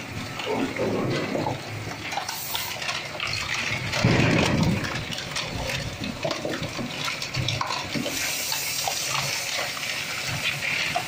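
A 20 HP multipurpose shredder chewing through polyethylene drums: a continuous rough crunching and cracking of plastic, with a louder burst about four seconds in.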